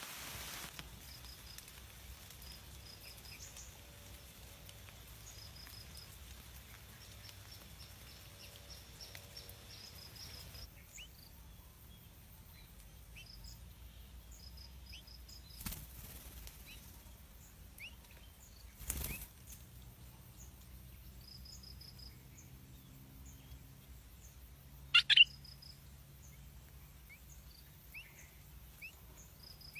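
Small birds chirping: short, rapid high trills repeat every second or two, with scattered single chirps, over a faint low hum. About 25 seconds in comes a sudden loud, sharp double sound.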